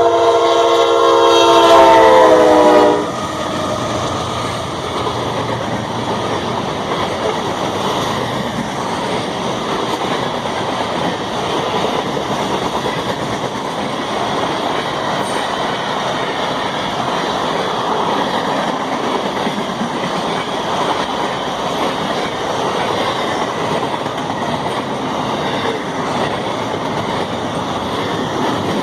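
Train horn sounding a chord of several held tones that stops about three seconds in, followed by the steady noise of the train's wheels rolling past on the rails.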